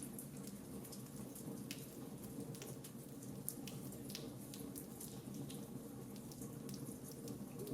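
Fire crackling: irregular sharp pops and snaps, several a second, over a steady low rushing of the flames.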